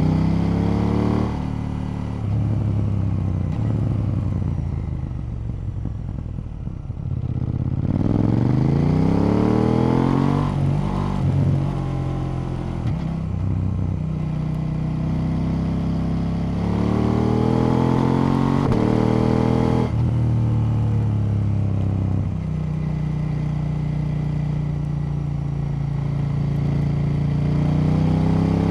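KTM 890 Duke L's parallel-twin engine on the move: it pulls up through the gears several times in rising sweeps broken by quick shifts, then eases off the throttle into quieter stretches, and holds a steadier note for a few seconds near the end before pulling again.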